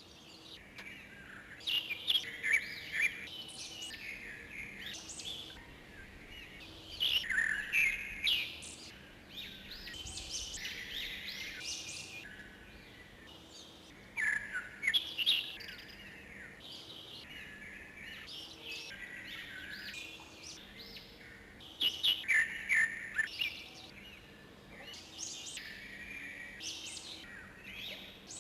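Small songbirds chirping and twittering, with loud bursts of quick chirps every several seconds between quieter calls.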